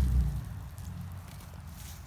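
A low engine rumble, like a passing motor vehicle, dies away about half a second in. It leaves faint crackling and rustling with a few small ticks.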